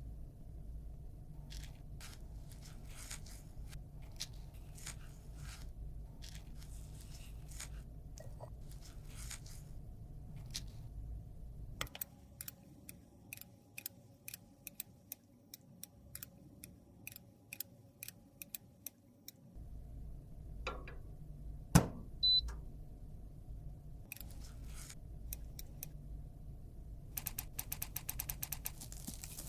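Small clicks and taps from handling makeup containers and tools, with one sharp knock a little past the middle followed by a brief high beep. Near the end comes a fast, even run of about ten clicks a second.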